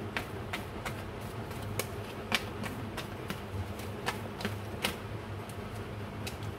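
A deck of tarot cards being shuffled and handled, with irregular crisp clicks and snaps of the cards, over a steady low hum.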